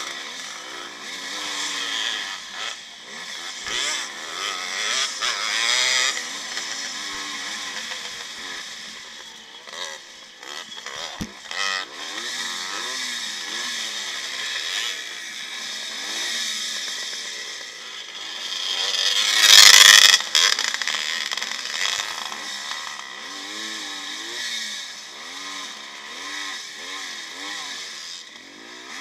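1955 Maico two-stroke single-cylinder motocross engine revving hard under race load, its pitch rising and falling again and again as the throttle opens and closes, with wind rush and rattle on the on-board camera. A loud rushing burst comes about two-thirds of the way through.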